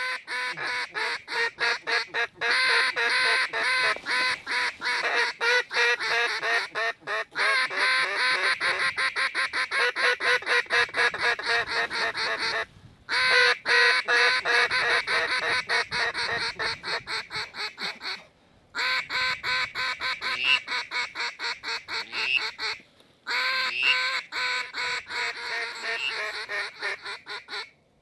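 A large flock of waterfowl calling in a dense, continuous chorus of rapid overlapping calls. It breaks off abruptly three times and cuts off at the end.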